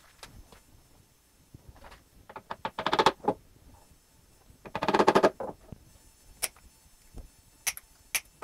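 Clatter and clicks of hand tools and small wooden parts being handled on a wooden workbench: two short bursts of rapid clicking about three and five seconds in, then a few single taps near the end.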